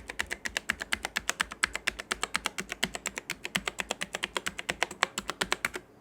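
Fast typing on a Redgear MK881 mechanical keyboard: a rapid run of keystrokes, about ten a second, stopping shortly before the end. Worn with age, the switches have lost their click, leaving only a dull clacking 'khat-khat' sound.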